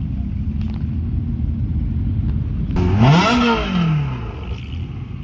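Ferrari 360 Spider's V8 idling, blipped once about three seconds in: the engine note rises quickly and falls back to idle over about a second and a half.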